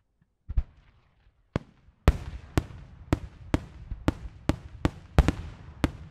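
Daytime fireworks: aerial shells bursting overhead with sharp bangs, two single reports and then a regular run of about two bangs a second, with a low rumble and crackle between them.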